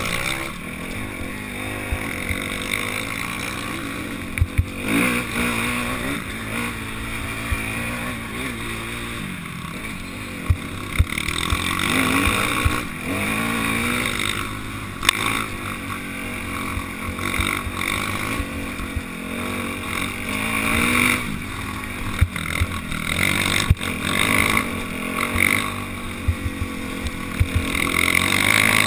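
Off-road motorcycle engine, ridden over a rough trail, revving up and falling back again and again, with frequent sharp knocks and rattles as the bike hits rocks and bumps.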